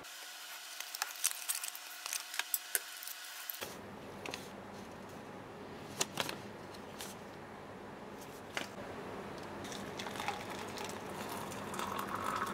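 Scattered small clicks and rustles of a tea packet and cup being handled, then water starting to pour into a tumbler near the end.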